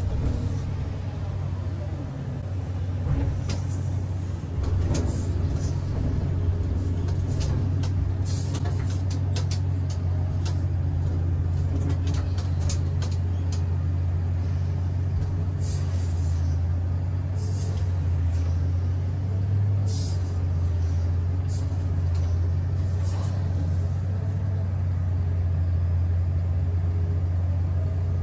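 Komatsu PC3000 mining excavator running under load as it digs and swings, heard from inside its cab: a steady low drone, with scattered sharp clicks and knocks through the first half and a few more later.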